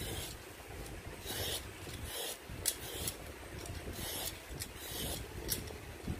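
Handheld vegetable peeler scraping the ridged skin off a patola (angled luffa gourd) in a series of short rasping strokes, about one a second.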